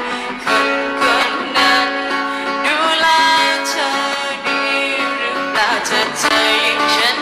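A woman singing into a microphone with acoustic guitar accompaniment.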